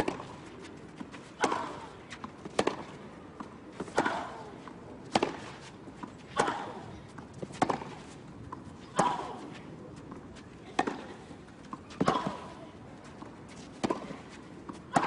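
Tennis rally: a ball struck back and forth by rackets on a clay court, about a dozen sharp hits spaced a second or so apart.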